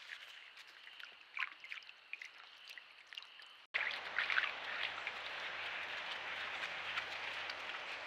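Trail camera audio at a creek. First a faint steady high hum with small ticks and splashes as a raccoon steps over the wet creek bed. A little over a third of the way in it cuts suddenly to a louder steady rush of shallow running creek water with a low hum, and a few louder scuffs as a wild hog walks across.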